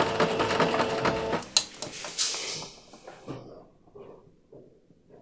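Electric sewing machine stitching at speed, a fast, even run of needle strokes, as bias tape is sewn down along a corset edge. It stops about a second and a half in, followed by a couple of clicks and faint handling sounds.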